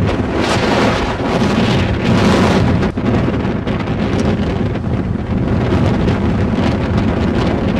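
Strong mountain wind buffeting the camera microphone: a loud, steady rush with a brief lull about three seconds in.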